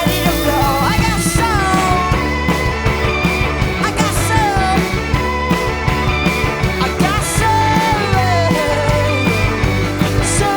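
Rock band playing an instrumental passage between sung lines: steady bass, drums, and a lead part with sliding, falling notes.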